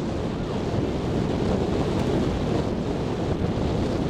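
Steady wind noise buffeting the microphone on the open deck of a moving boat.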